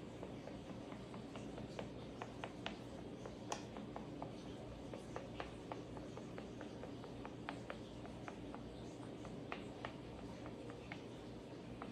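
Fingertips pressing crumbly tart dough into a fluted tart tin: faint, irregular soft taps and clicks, several a second, over a low steady hum.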